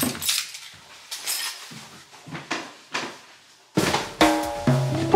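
A bunch of keys jingling as it is snatched up off a table, then footsteps walking away, about one every half second or so. About three and a half seconds in, music with drums and bass comes in and is the loudest sound.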